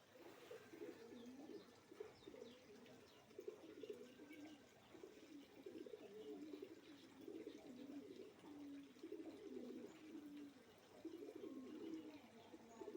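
Doves cooing faintly and repeatedly, one low call after another throughout, with a few faint higher chirps from small birds.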